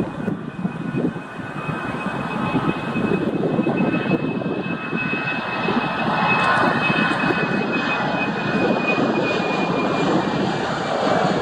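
Airbus A318's twin CFM56-5B turbofan engines running at high power during takeoff: a broad jet roar with a steady high whine on top. It grows louder over the first few seconds, then holds, and the whine sinks slightly in pitch near the end.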